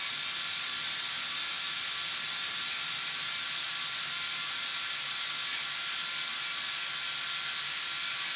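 LEGO Technic 42055 bucket wheel excavator crawling very slowly on its tracks under Power Functions motor drive: a steady mechanical running sound of motor, gearing and tracks.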